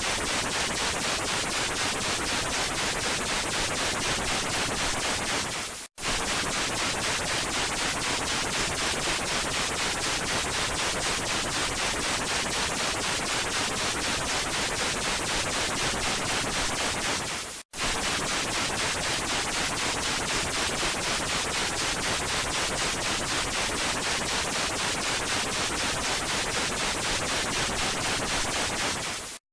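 Loud broadcast static hiss with a fast, fluttering crackle, standing for a signal broken up by transmitter damage. It cuts out abruptly for an instant twice, about six seconds in and again near eighteen seconds.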